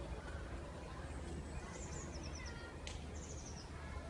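A small bird chirping in two quick runs of high, stepping-down notes over a faint steady outdoor hum, with a single sharp tap about three seconds in.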